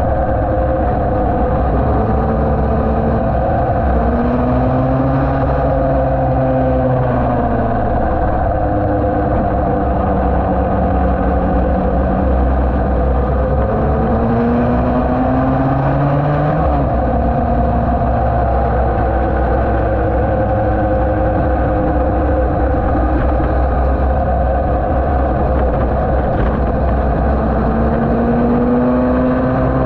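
Yamaha TD1B's 250 cc two-stroke twin racing engine running hard on track. Its pitch climbs as it pulls through the gears and falls away at each shift or when the throttle is rolled off, several times over.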